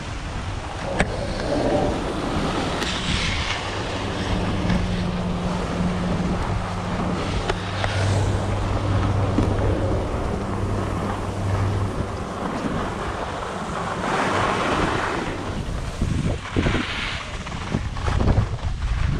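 Wind buffeting a GoPro's microphone at speed, with the hiss and scrape of skis on snow swelling at each turn. A low steady hum comes in for several seconds midway.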